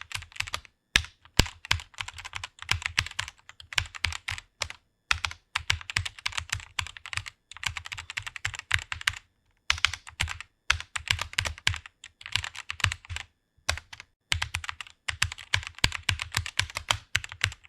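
Fast typing on a computer keyboard: rapid runs of keystrokes broken by brief pauses about every four seconds.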